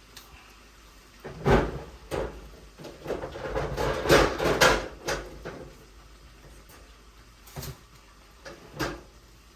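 Kitchen handling clatter: a series of knocks and bumps, densest in the middle, then two single knocks near the end.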